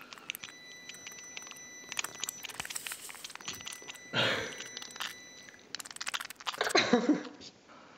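Irregular clicks, knocks and crunching from hands handling and squeezing a tomato right against the microphone, with two louder brief noises about four and seven seconds in.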